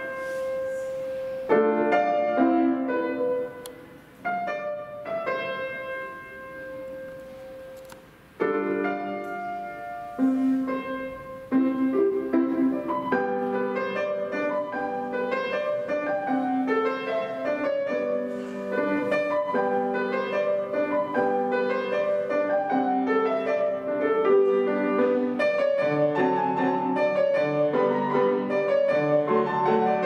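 Estonia grand piano played solo in a classical style: for the first ten seconds or so, separate chords that ring and fade with short pauses between them, then, from about twelve seconds in, a steady run of quicker notes.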